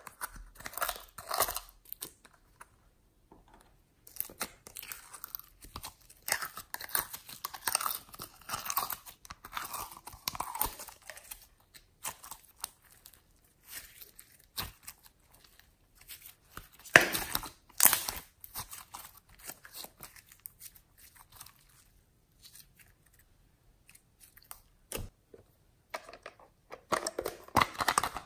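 Hands squeezing and stretching glossy slime: sticky, wet squishing in irregular bursts with quiet pauses, and a couple of sharp clicks about two-thirds of the way in.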